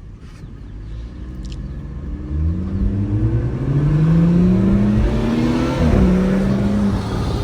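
BMW M340i's turbocharged inline-six, fitted with an aftermarket intake, accelerating hard. Quiet for the first two seconds, then the engine note climbs, drops back at upshifts and climbs again, getting much louder.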